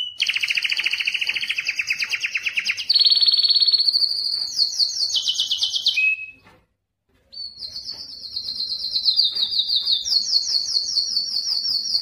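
Male canary singing a long song of rapid trills: each run of quickly repeated notes is held a second or two, then jumps to a new pitch. The song breaks off suddenly about six seconds in and resumes about a second later.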